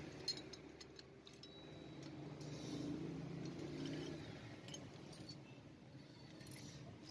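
Faint light metallic clinks and taps of small motorcycle engine parts being handled during cleaning, a few sharp ones in the first second or so, then a soft scraping rustle.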